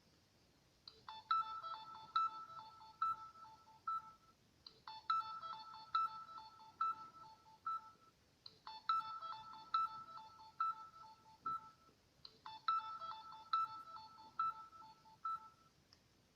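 Samsung GT-C3010 mobile phone ringtone: a short phrase of quick, bright electronic beeps played four times over, with a brief pause between repeats.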